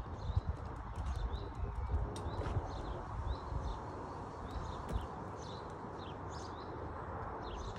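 Small birds chirping in many short, quick calls, over footsteps on a tarmac path and a low, unsteady rumble.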